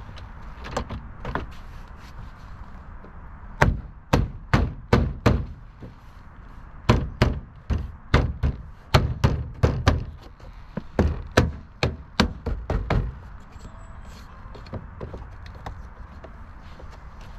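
A car door trim panel being thumped by hand so its plastic retaining clips snap into the door: about twenty sharp, dull knocks in quick groups between about four and thirteen seconds in.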